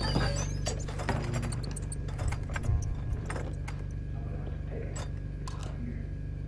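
Small metallic clinks and jingling, scattered and thickest in the first half, with a brief fast rattle about two and a half seconds in, over a steady low hum.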